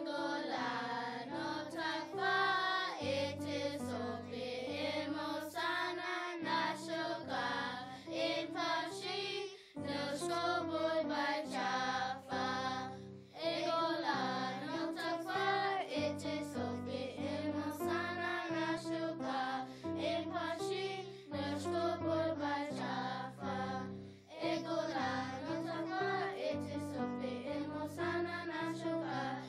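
A children's action song sung in Choctaw by a group of young voices over an instrumental backing.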